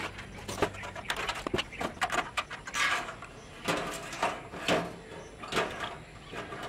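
Irregular clicks, taps and knocks of small hard parts being handled, a few every second.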